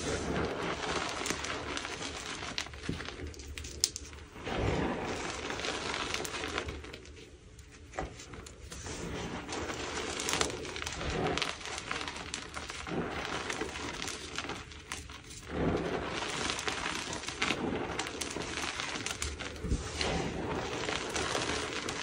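Dyed gym chalk blocks being crushed and crumbled, a steady run of dry crunching and crackling with many small snaps, easing off briefly about a third of the way through.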